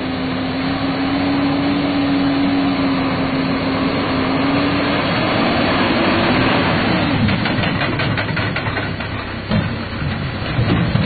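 Truck engine running steadily as it pushes through mud, its note rising a little and then falling away about six or seven seconds in. A scatter of knocks and a few heavy thumps follow near the end as the truck tips over onto its side.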